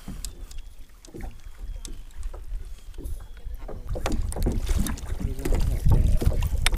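Kayak paddle knocking and scraping against the kayak, with water splashing and wind rumbling on the microphone, louder from about four seconds in.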